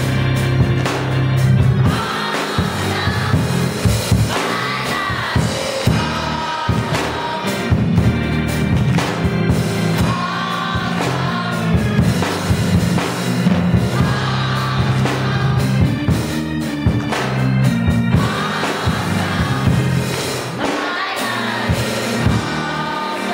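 Children's voices singing a gospel song, accompanied by a drum kit.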